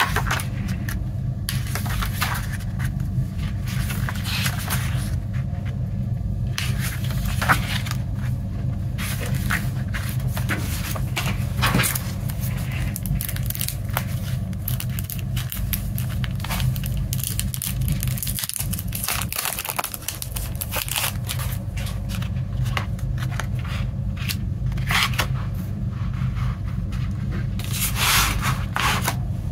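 Paper and card being handled: a CD booklet's pages turned and photo cards slid out and set down on a table, with scrapes and crinkles, over a steady low hum.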